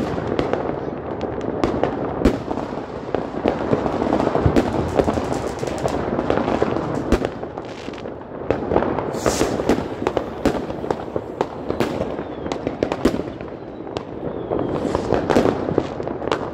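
Many fireworks rockets and firecrackers going off at once, a dense, unbroken run of bangs, pops and crackling, with a short hiss about nine seconds in.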